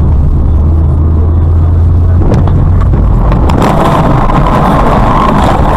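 Steady low drone of a car's engine and road noise heard from inside the cabin. About two seconds in come several sharp knocks, followed by a loud harsh noise: a car colliding with another in traffic.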